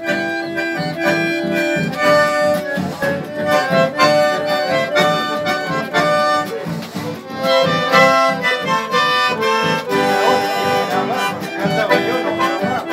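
Two bandoneons playing a tune together, held chords under quick runs of melody notes.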